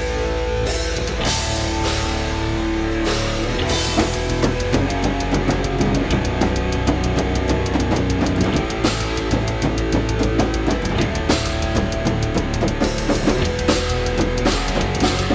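Metalcore band playing an instrumental passage with distorted electric guitars, bass guitar and drum kit, no vocals. About four seconds in, the drums pick up into fast, dense hits under the guitars.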